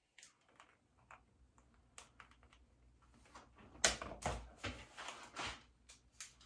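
Someone handling small objects at a bathroom counter: a scattering of light clicks, taps and rustles, busiest from about four seconds in, where a few sharper knocks stand out.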